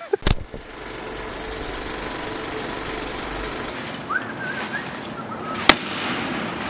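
A steady mechanical running noise with one sharp knock near the end.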